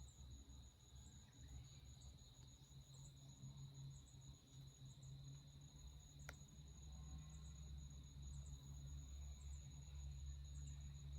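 Faint, steady high-pitched insect trilling with small repeating chirps, over a low rumble. There is one sharp click about six seconds in.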